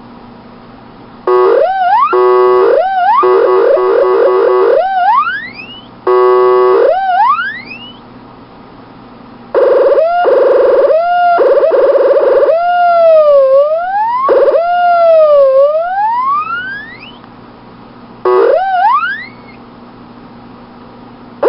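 Tweety Bird CB radio noise toy playing its electronic bird-call effects: fast warbling chirps, rising whoops and dipping siren-like swoops. They come in four groups, starting about a second in, near six seconds, near ten seconds and near eighteen seconds, with steady hiss between.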